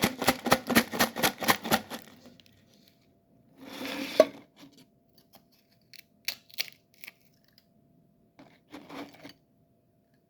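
A can of ranch Pringles potato chips shaken, the chips rattling in a fast, even run of about seven clicks a second for two seconds, then scattered clicks and a couple of short rustles.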